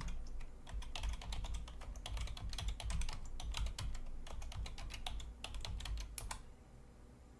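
Typing on a computer keyboard: a quick, uneven run of key clicks as a command is typed, stopping about six seconds in.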